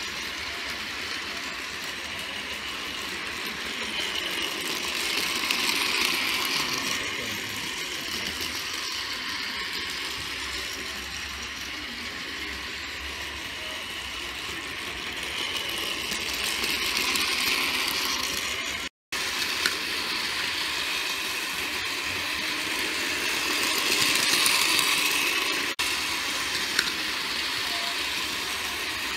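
Battery-powered toy trains running on plastic track: a steady whir of small motors with the wheels rattling on the rails, swelling as a train passes close about 6, 17 and 24 seconds in.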